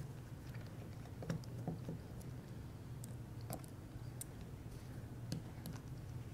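Faint, scattered clicks and light scrapes of a precision screwdriver working a tiny screw out of a plastic gimbal handle, over a low steady hum.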